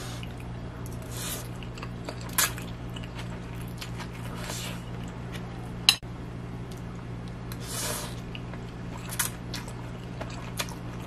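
A person slurping and chewing fried instant noodles: several short slurps a few seconds apart, a sharp click about halfway through, over a steady low electric hum.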